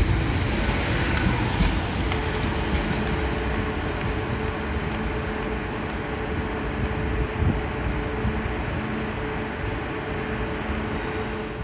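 Renfe Tren Hotel sleeper train rolling slowly along the platform and coming to a stand, its running noise easing off. A steady hum from the train's equipment holds underneath.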